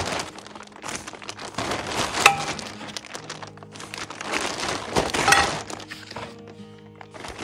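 Plastic tarp crinkling and rustling as it is handled, with metal trampoline poles clinking together about two seconds in and again about five seconds in.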